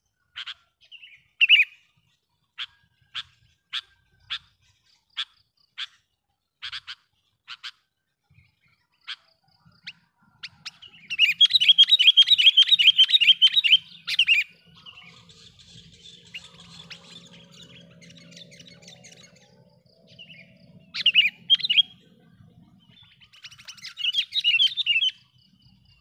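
Sooty-headed bulbul (kutilang) calling. It gives a run of short, sharp notes about two a second, then breaks into a loud, rapid chatter for about three seconds. Two more chattering bursts come near the end.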